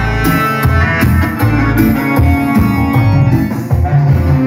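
Live band playing an instrumental passage: electronic keyboards over a moving bass line, with a steady drum beat and cymbals.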